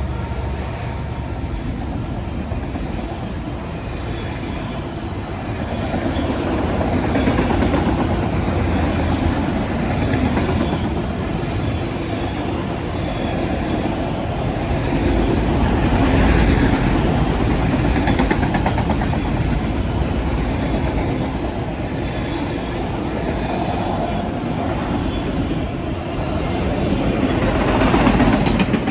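CSX freight train rolling steadily past, its cars and wheels going by on the rails with gentle swells in loudness. The tail of a horn note fades out in the first second.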